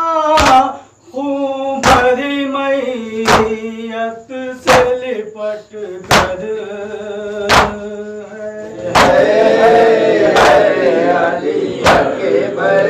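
A male noha reciter singing a Muharram lament in long, wavering notes, kept in time by sharp strikes of chest-beating (matam) about every second and a half. About nine seconds in, many voices join the chant.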